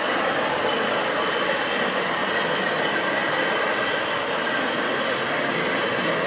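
O gauge model diesel locomotives hauling a long train of wagons along the track, making a steady rolling rumble of wheels on rail.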